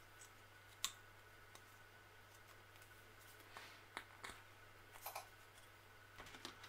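Small metallic handling clicks of clip pliers and galvanised wire mesh clips: one sharp click about a second in, then a few lighter clicks between about four and five seconds in, over a faint low hum.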